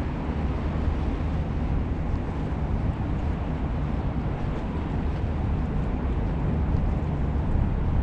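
Wind buffeting the microphone: a steady, uneven low rumble, with a few faint ticks over it.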